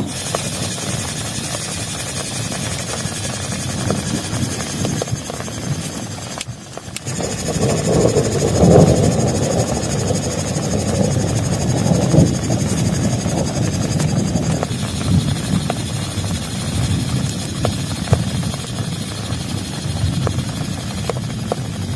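Heavy rain drumming steadily on a plastic tarp, with many individual drops ticking. The sound drops out briefly about six and a half seconds in.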